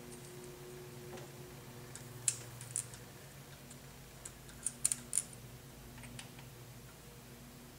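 Light, sharp metallic clicks of a screwdriver and wrench working the rocker-arm adjusting screws while valve lash is set on a Triumph Spitfire 1500 engine, several ticks in a cluster between about two and six seconds in, over a faint steady hum.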